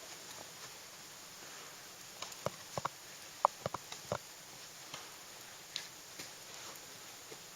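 Ice axe picks and crampon points striking waterfall ice: a cluster of sharp, irregular taps about two to four seconds in, then a couple more, over a steady hiss.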